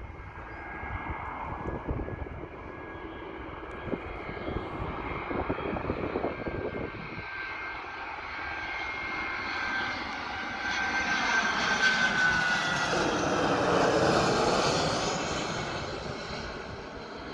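Airbus A319-111 jet airliner on final approach, its CFM56 turbofans whining and rumbling as it draws closer. About twelve seconds in the whine drops in pitch as the jet passes, and the sound peaks, then begins to fade.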